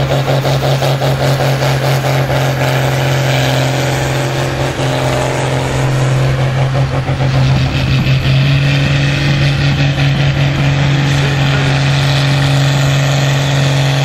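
John Deere tractor's diesel engine running hard under full load as it pulls a weight-transfer sled in a tractor pull: a loud, steady, pulsing drone that grows a little louder after about eight seconds.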